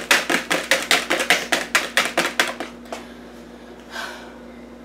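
A whisk beaten fast by hand in a plastic mixing bowl of macaron mixture, clicking against the bowl about five strokes a second, then stopping about three seconds in.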